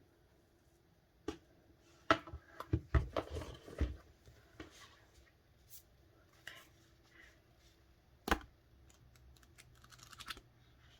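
Hands opening and handling DVD box-set packaging: plastic and card rustling with sharp clicks and taps, busiest about two to four seconds in, with one sharp knock a little past eight seconds.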